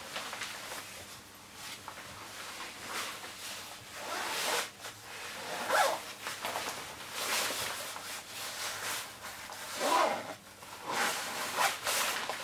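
Marmot Cerro Torre Gore-Tex Pro Shell jacket being handled while worn: the stiff shell fabric rustles, and a zipper is pulled, in several separate swishes.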